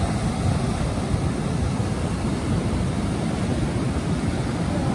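Wind rumbling and buffeting on the microphone over the steady wash of ocean surf.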